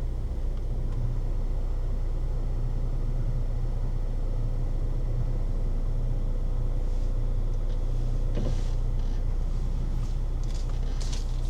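A steady low rumble, with a few faint clicks about eight seconds in and again near the end.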